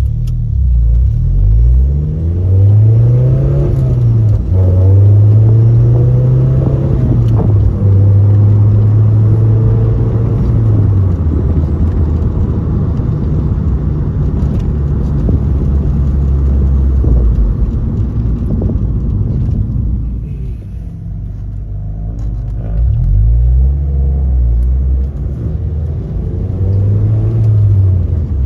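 Mazda MX-5 NC1 four-cylinder engine and exhaust pulling through the gears. The pitch climbs and drops back several times in the first half, holds steady for a few seconds, and falls away about two-thirds of the way through. It then climbs twice more near the end.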